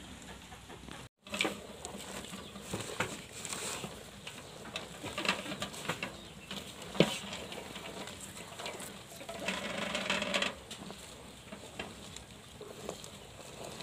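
Two cows munching sliced banana stem from a metal basin: irregular soft crunches and rustling, with one sharper crunch about seven seconds in.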